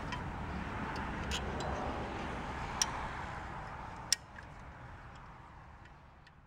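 Hand-operated come-along lever winch, its ratchet pawls clicking sharply a few times over a steady background hiss. The last click is the loudest, and the whole sound then fades out.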